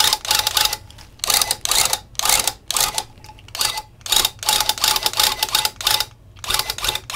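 Electric loop pile tufting gun punching yarn into rug backing in short, irregular bursts, about two a second.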